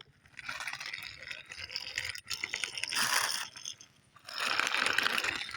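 Plastic toy scraping and rattling against a hard surface as it is handled and pushed along, in three gritty bursts with a quick clicking texture.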